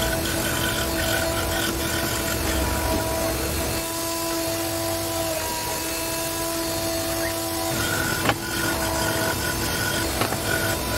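Scroll saw running and cutting through a sheet of acrylic, a steady motor hum with a noisy blade sound. There is one sharp click about eight seconds in.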